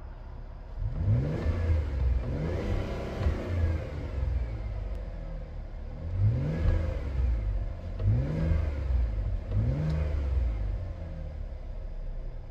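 2022 Chevrolet Traverse's 3.6-litre V6 idling and being revved in park, heard from inside the cabin. There are about five blips of the throttle, each rising and then falling in pitch, with the steady idle between them.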